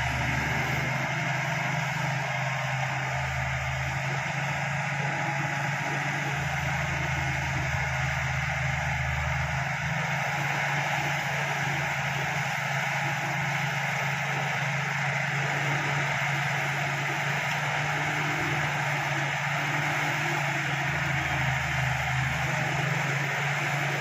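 Crawler bulldozer's diesel engine running steadily at a constant pitch while the machine pushes soil.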